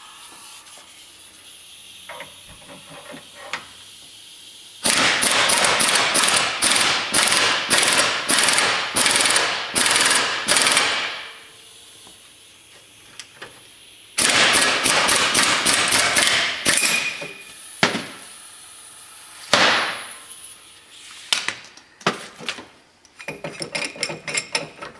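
Air impact wrench hammering in bursts on the screw of a ball joint press, forcing a U-joint bearing cup through a Dana 44 axle yoke. The longest burst runs about six seconds, with shorter bursts and a quick volley near the end.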